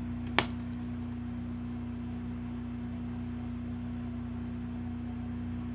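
A single sharp click of a plastic DVD case being handled, about half a second in, over a steady hum with a fixed low tone.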